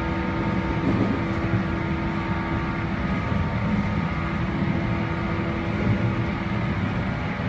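Running noise inside a JR West 117 series electric train, heard in a motor car (MoHa 117-309). The wheels rumble steadily on the rails, with a hum of several held tones from the running gear as the train keeps an even speed.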